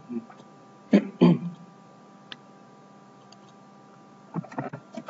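Computer keyboard keys tapped in a quick run near the end, with a single mouse click in the middle. A brief voice sound, two short syllables, comes about a second in, over a faint steady electrical hum.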